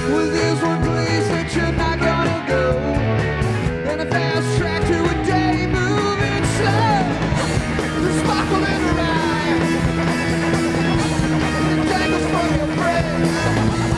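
A rock band playing live, with drums, bass, electric guitars and keyboards together at full volume and a steady beat, and sliding, gliding notes after about six seconds.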